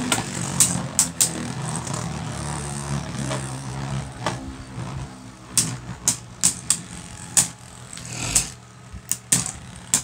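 Two Beyblade Burst tops, Cyclops C4 and Twin Noctemus, spinning in a plastic stadium: a steady whirring hum that slowly fades as they lose speed, broken by sharp clacks as they collide, more often in the second half.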